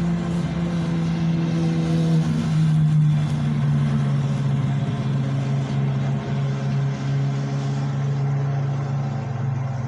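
Petrol lawn mower engine running steadily, its pitch dropping a little about three seconds in.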